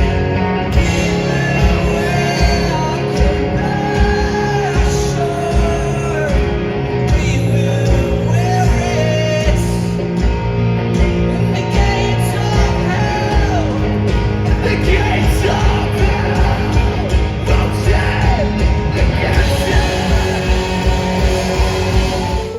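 Loud rock music with sung and shouted vocals over driving guitars and fast drums.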